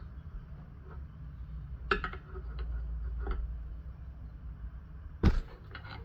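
A few scattered clinks and knocks of metal engine parts and tools being handled during a small-engine teardown, with one sharp, louder knock near the end.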